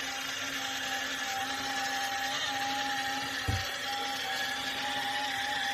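Battery-powered ride-on Thomas the Tank Engine toy train running along its plastic track, its electric motor giving a steady whine. One low bump about three and a half seconds in.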